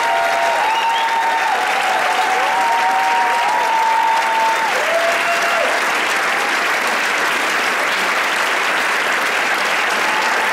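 Audience applauding steadily. Over the applause, during roughly the first five seconds, come several long, held calls from the crowd that rise at the start and fall away at the end.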